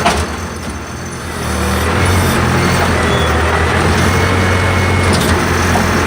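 Backhoe engine running steadily under a digging job; its level drops briefly about a second in, then rises again and holds.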